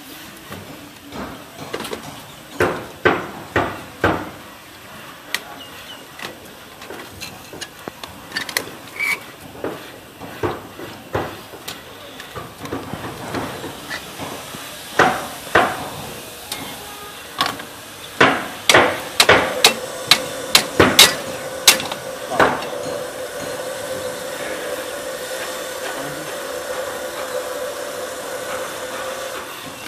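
Sharp hammer strikes on a construction site, coming in irregular groups of a few blows at a time. About two-thirds of the way through, a steady machine hum comes in and keeps going under the later blows.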